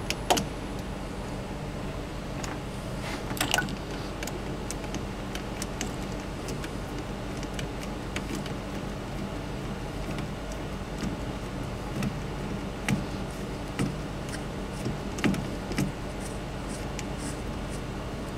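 Scattered metallic clicks and taps of a socket wrench and long extension working the mounting bolts of a Ferrari F1 gearbox pump, over a steady low hum.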